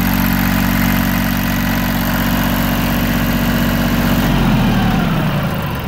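Yanmar YM1602D compact tractor's diesel engine idling steadily. About four seconds in it is shut off, and its note falls away as the engine spins down to a stop.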